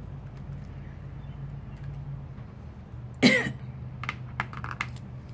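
A person coughs once, sharply, about three seconds in, followed by a few small clicks, over a steady low room hum.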